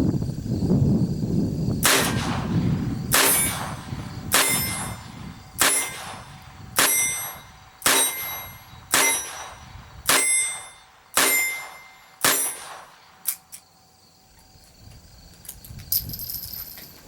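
Ruger GP100 .22 LR revolver fired ten times at about one shot a second, emptying its 10-shot cylinder, each shot sharp with a short ringing tail. The steady pace fits double-action shooting. Two faint clicks follow the last shot.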